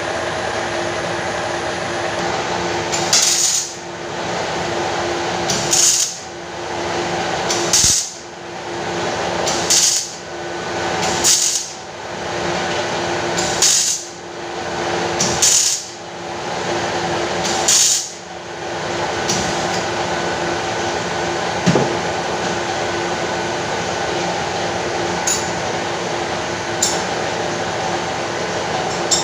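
Tool work on metal over a steady machine hum: about eight short, sharp hits or bursts come roughly every two seconds, then stop for the last third.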